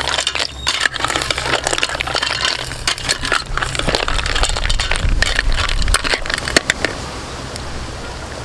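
Metal ladle stirring shell-on snails in curry sauce in a stainless-steel pot: the shells clack and scrape against each other and the pot wall. The clatter is rapid and irregular and thins out near the end.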